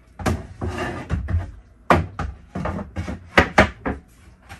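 Wooden knocks and thuds, several in irregular succession, as a screwed-in wooden step support panel is pushed and pulled by hand to work it loose, with one screw still holding it.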